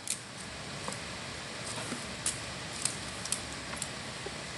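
Light, scattered clicks and taps of hands handling a smartphone and its packaging, about one every half second, over a steady background hiss.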